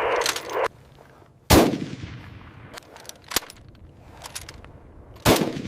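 A short burst of hissing noise that cuts off under a second in, then two loud single gunshots about four seconds apart. The first echoes away over a second or so, and a few light metallic clicks fall between them.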